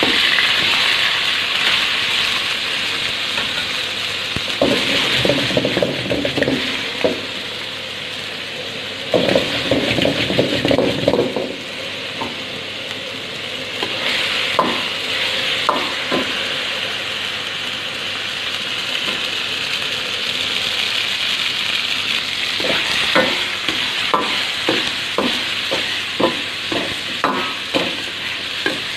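Chicken pieces sizzling in hot coconut oil in a steel wok, with a steady hiss throughout. A metal ladle stirs and scrapes the wok in two louder stretches, then knocks against it again and again near the end.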